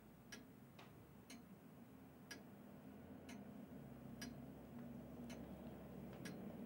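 A clock ticking about once a second in a quiet room, with a faint low hum underneath.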